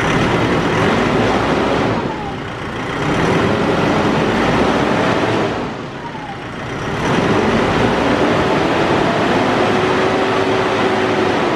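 Nissan YD25DDTi 2.5-litre four-cylinder turbodiesel held at high revs, with the revs dropping back briefly about two seconds in and again about six seconds in before being raised again each time.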